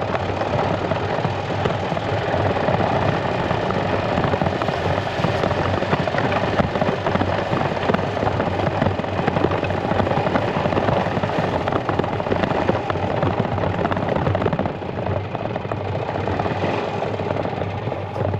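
Yamaha G2 golf cart's single-cylinder four-stroke engine running under load as the cart is driven over rough grass and gravel, with a dense, rapid rattle. The sound eases off slightly about two-thirds of the way through.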